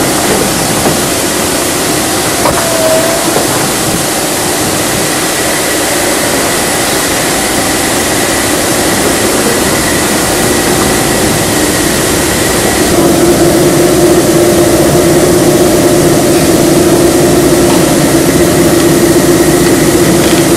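Shafted screw compactor running under load: a steady, loud mechanical drone with a faint high whine. About two-thirds of the way through, the whine stops and the sound turns louder, with a lower hum.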